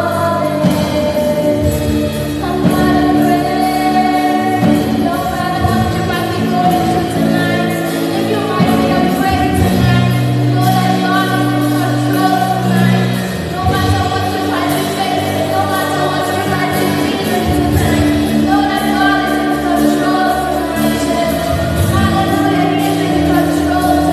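Gospel worship music: singing over a live band, with sustained chords and a steady accompaniment.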